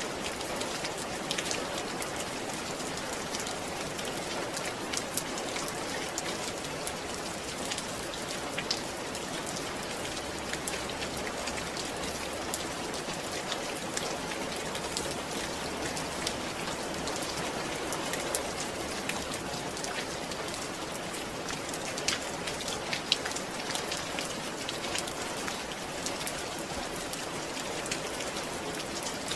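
Steady rain falling on a surface, an even hiss with many scattered sharp drips and patters.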